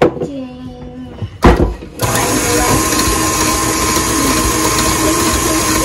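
Electric blender knocked into place, then switched on about two seconds in and running steadily at full speed.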